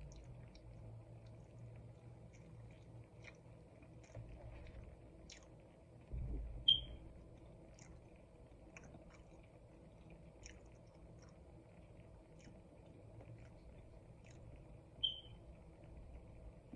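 Close-miked chewing of a soft waffle sandwich, with small wet mouth clicks scattered throughout and a low bump about six seconds in. Two short high-pitched chirps, one just before the middle and one near the end, stand out as the loudest sounds.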